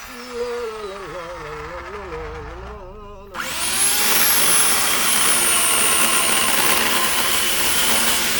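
Electric chainsaw motor winding down with a falling whine, then switched on again about three seconds in: it whirs up quickly and runs at a steady, high-pitched full speed.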